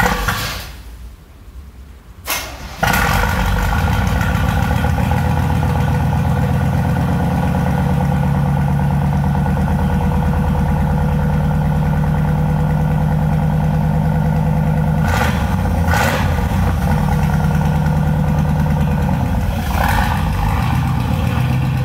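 Straight-piped exhaust of a 1992 GMC Sierra 1500 pickup as the engine starts: a brief burst of noise and a near-pause, then it catches about three seconds in and runs at a loud, steady idle.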